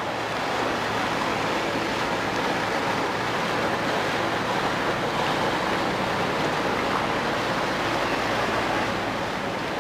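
Boat moving along a canal: a steady rush of water and wind noise with a low engine hum underneath.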